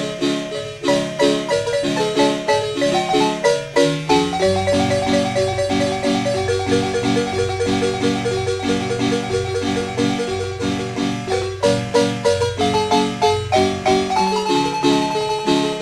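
Marimba music: quick, rhythmically repeated mallet notes, with a deeper bass part joining about four seconds in and dropping back near the end.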